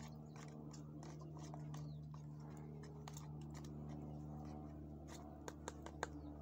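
A small kitchen knife cutting and scraping against a plate, with scattered light clicks and scratches and a few sharper clicks near the end, over a steady low hum.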